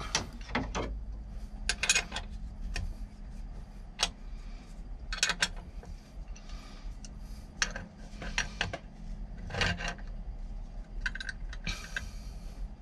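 Steel wrenches clinking and scraping: a combination wrench and an adjustable crescent wrench knocking on the serpentine belt tensioner's nut and bolt as the tensioner is tightened, with irregular sharp clinks every second or so over a low steady hum.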